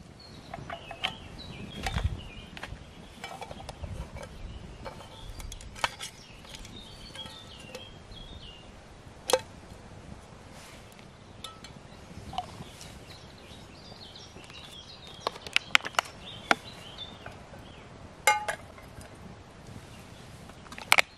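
Songbirds chirping in the background while camp cooking gear is handled on a wooden table: scattered sharp clinks and knocks as a frying pan and food containers are picked up and set down.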